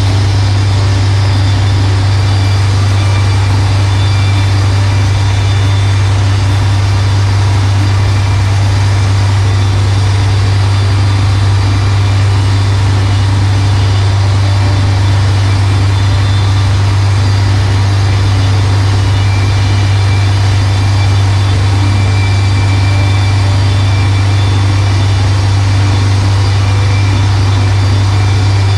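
Wood-Mizer LT40 portable band sawmill running steadily at a loud, even drone as its band blade saws a board off a pine log.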